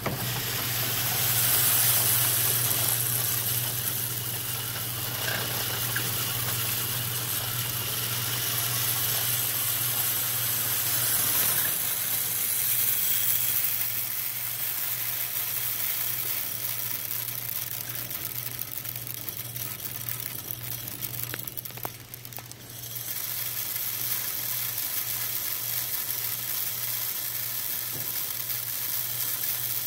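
Grain pouring from a spout into a model rail car: a steady hiss of running grain over a low steady hum. The pour briefly thins about two-thirds of the way through, then carries on.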